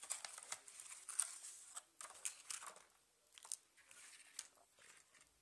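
Paper and cardstock rustling, with light taps, as handmade paper craft items are pulled one by one out of a paper gift bag and set down on a wooden table. The handling is busiest in the first three seconds and sparser after.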